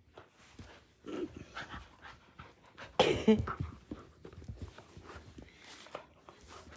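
Dachshund panting hard while chewing and tugging at a plush teddy, with many short scratchy clicks throughout. A louder burst of breath and noise comes about three seconds in.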